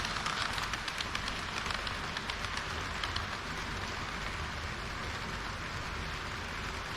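HO-scale model train running along the track, its wheels on the rails making a steady rolling hiss, with quick small clicks over the first three seconds or so.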